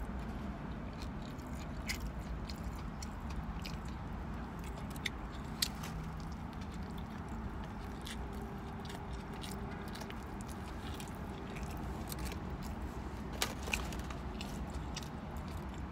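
A person chewing and biting into a burger close to the microphone, with scattered short wet mouth clicks and smacks, over a steady low rumble inside a car.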